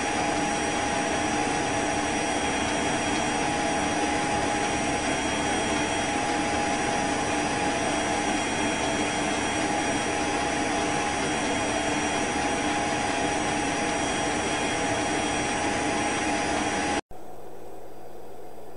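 A steady mechanical whirring noise with a few constant hum-like tones in it. It cuts in abruptly and cuts off abruptly about 17 seconds in, leaving only fainter hiss.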